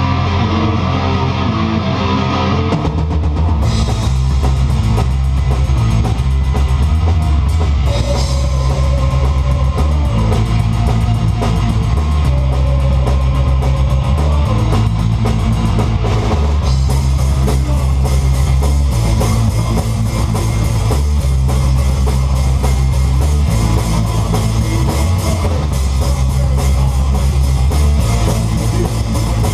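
Death metal band playing live: a low, distorted guitar riff that shifts pitch every second or two, over a drum kit. Cymbals fill in about three seconds in.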